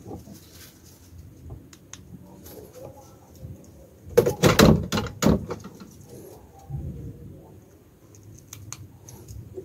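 A house door being handled: a loud cluster of knocks and rattles about four seconds in, a softer one near seven seconds, and scattered light clicks between.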